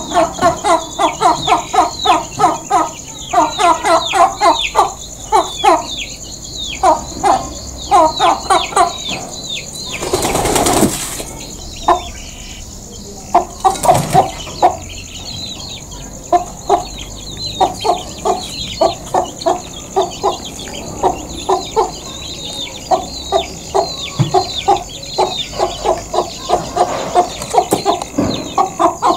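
Hen clucking in rapid runs of short 'gog gog gog' calls, several a second, the settling calls of a chicken going to roost. A burst of wing flapping comes about ten seconds in and a brief sharp flap about fourteen seconds in as she flies down.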